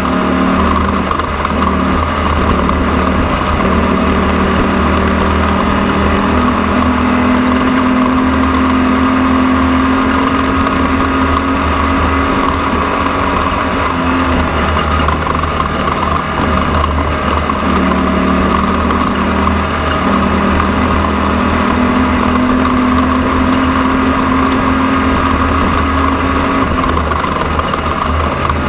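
An engine running steadily, its pitch stepping up and down several times.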